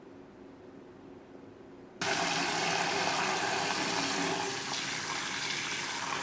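Faint room tone with a low steady hum, then about two seconds in a kitchen tap suddenly starts running into a glass bowl of water, splashing steadily over white strawberries as a hand swishes them to rinse them.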